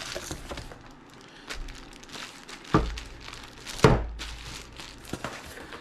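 Handling noise from unpacking: light rustling of packaging and small clicks, with two hard thunks about a second apart near the middle as items are knocked or set down.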